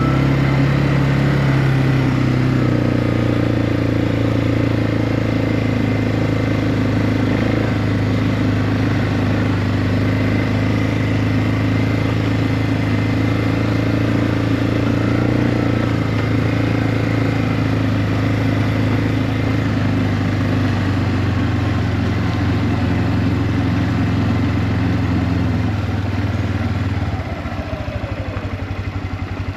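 Four-wheeler (ATV) engine running steadily under way, then dropping to a quieter, lower idle near the end.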